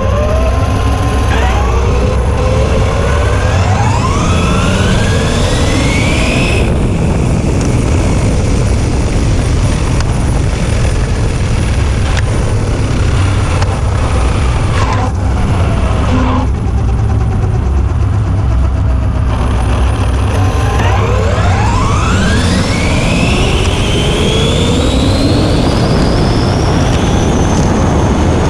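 Onboard sound of an Arrma Limitless V2 RC speed-run car: its brushless motor and drivetrain whine rising in pitch as it accelerates, falling as it slows mid-way, then climbing again in a second, longer acceleration run. A heavy low rumble sits under the whine.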